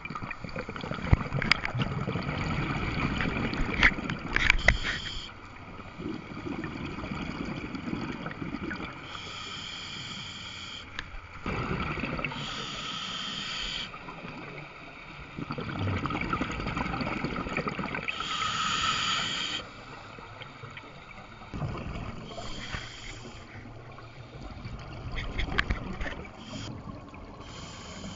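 Scuba diver breathing through a demand regulator, heard underwater: a hissing inhale alternates with a bubbling, gurgling exhale every few seconds.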